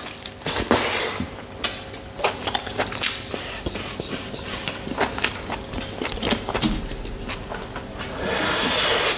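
Close-up eating sounds of a man gnawing and sucking on a mutton marrow bone: wet mouth smacks and clicks throughout, with hissing sucks, one about a second in and a longer one near the end.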